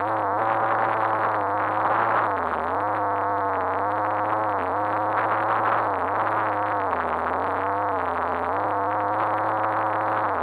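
RC car's motor running under changing throttle, heard from on board through a fully sealed camera housing that muffles it. Its pitch rises and falls, dropping briefly every two or three seconds as the throttle eases off and picks up again, over a steady low hum.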